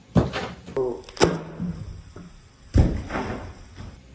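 Kitchen knife chopping through sweet potato onto a cutting board: a few separate heavy knocks, the loudest about three seconds in.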